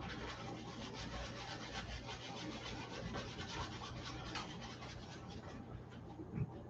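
Paintbrush scratching and rubbing across a stretched canvas in rapid short strokes as oil paint is worked on, with a single thump near the end.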